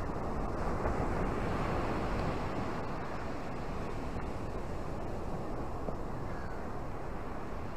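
Ocean surf breaking on rocks and washing up a sandy beach, a steady rushing wash that swells slightly about a second in, with a low rumble of wind on the microphone.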